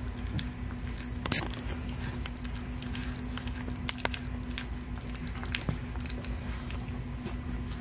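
A three-week-old Rottweiler puppy eating soaked kibble mush from a stainless steel dish: wet squishing and lapping with many small irregular clicks, over a steady low hum.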